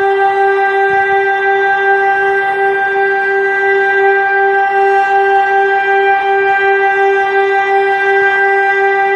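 Civil-defence warning sirens sounding one loud, steady tone with a slight fast flutter, the continuous tone of a siren test.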